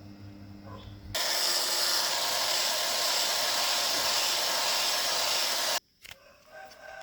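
A low steady hum, then a loud, even hiss that starts abruptly about a second in, holds steady and cuts off sharply near the end.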